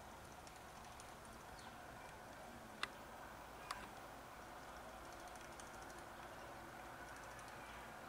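Faint patter of house sparrows splashing and fluttering as they bathe in a shallow bird bath, coming in short bursts, with two sharp clicks about three and four seconds in.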